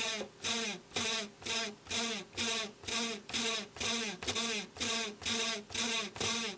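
Video head drum of a Panasonic NV-S70 S-VHS-C camcorder being spun round by hand, its bearing giving a pitched, grinding noise in even pulses about two and a half times a second, each dropping in pitch. It is a lot of noise for a head spun by hand, the sign of a fault in the drum bearing, which the owner sets out to cure by lubricating it.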